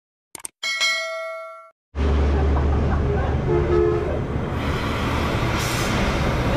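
A mouse-click and a ringing notification-bell chime, then about two seconds in a steady loud hiss of a gas torch flame heating an aluminum motorcycle mag wheel, over a low hum.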